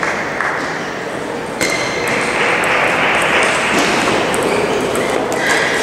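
Table tennis ball clicking sharply off rackets and the table during a rally, with more ping-pong clicks from neighbouring tables. Underneath is a loud steady hiss of hall noise that grows louder about two seconds in.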